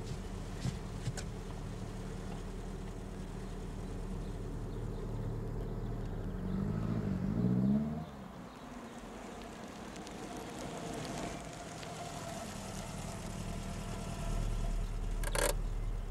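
Car engine running steadily, then revving up with its pitch rising for about two seconds before cutting off abruptly about eight seconds in. After that a quieter steady engine hum, as heard inside a moving car, with a single sharp click near the end.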